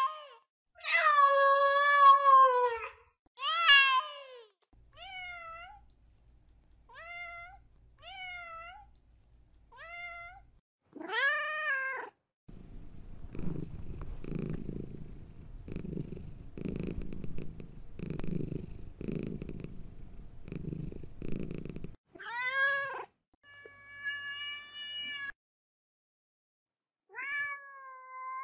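Domestic cats meowing: several long, loud meows, then a run of shorter, quieter mews, then about ten seconds of low, pulsing purring, then more meows near the end.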